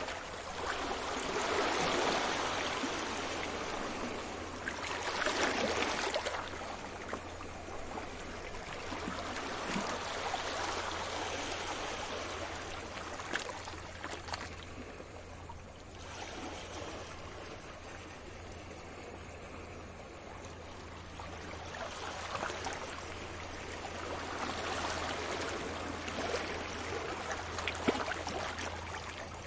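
Sea waves washing in and drawing back in slow surges, each swell rising and fading over a few seconds, with a quieter lull about halfway through.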